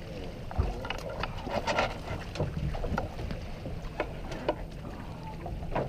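Water splashing and short knocks and clicks against a small boat as a hooked largemouth bass is reeled in and landed, over a steady low rumble of wind and water.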